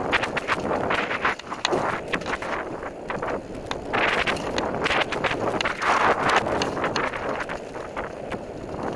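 Mountain bike ridden fast down a dirt singletrack: wind rushing over the microphone, with the tyres on dirt and frequent irregular rattles and knocks of the bike over roots and bumps.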